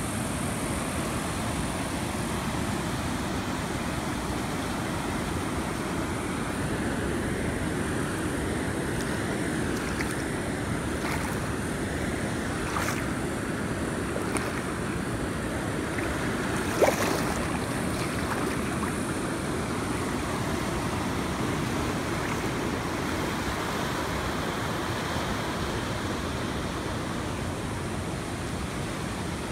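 Steady rush of ocean surf and shallow seawater washing over a sandy beach. A few short sharp clicks, the loudest a little past halfway.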